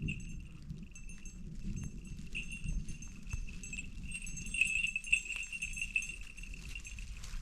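Small livestock bells on a grazing flock jingling without pause, brighter in the second half, over a low rumble of background noise.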